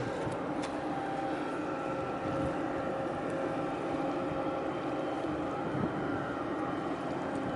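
Steady low drone of a ship's engine passing close by, a few constant humming tones over a wash of wind and water noise.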